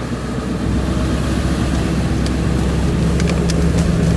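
Car engine and road noise heard from inside the cabin as the car drives slowly along, growing louder about a second in, with a steady low engine tone and a few light clicks.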